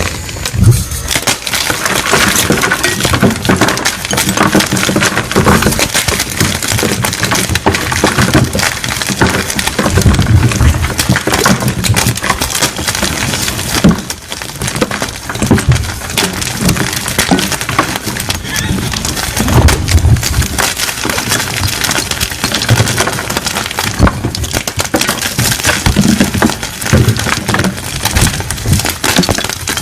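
Two blocks of plain white gym chalk being crushed together: continuous dense crunching and crumbling, with occasional dull thuds as the blocks give way.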